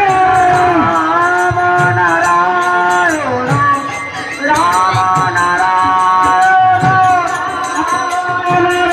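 Devotional kirtan singing: one voice holds long, sliding notes of a name-chant, dipping in pitch and level a little past the middle, over a steady beat of light percussion and drum strokes.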